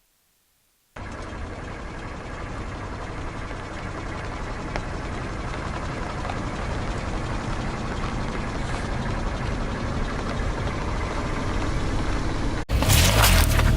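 A car running and rolling slowly, its engine and tyres getting gradually louder. It starts abruptly about a second in. Near the end it cuts to a louder passage with sharp crackles.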